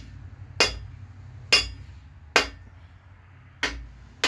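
Five sharp metallic taps, unevenly spaced about a second apart, as a main bearing cap on a GM 4.3 V6 marine engine block is tapped from the side to seat it in its groove over the crankshaft.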